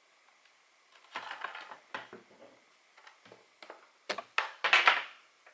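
Handling noise as a USB-C cable is pushed into the port on the back of a mechanical keyboard: scattered small clicks and scrapes, with the loudest scraping rustle about four to five seconds in.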